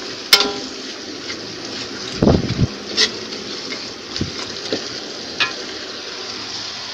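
Metal spatula stirring sliced jengkol in a thick chilli paste in a metal wok, with several scraping knocks against the pan over a steady sizzle of frying.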